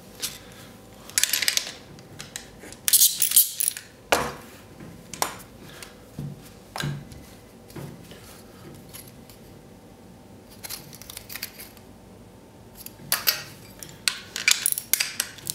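Small metal hand tools and parts clinking as they are picked up and handled, in short scattered clicks. Near the end a socket ratchet clicks rapidly as it is worked on the nuts of the stainless-steel plate cell.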